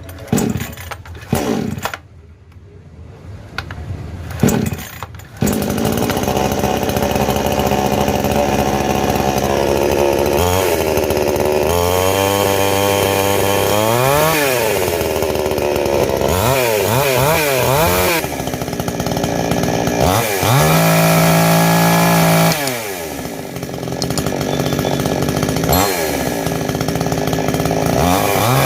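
Powermatic 58cc two-stroke single-cylinder petrol chainsaw starting about five seconds in, then idling and being revved up and down over and over, held at high revs for about two seconds past the middle.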